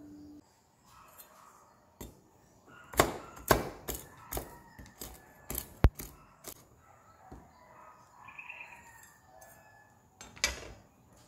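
A flat blade chopping trail mix of nuts and dried cranberries on a wooden cutting board: a quick run of about eight sharp knocks of the blade striking the board, then one more knock near the end.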